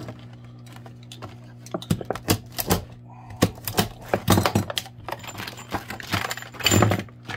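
Stiff clear plastic blister pack being cut and pried open with a knife: a run of sharp plastic clicks, snaps and crinkles, loudest near the end.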